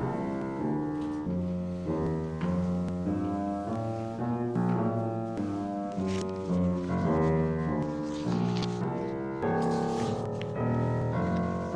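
Keyboard music closing the service as a postlude, moving through held chords and melody notes at a steady pace.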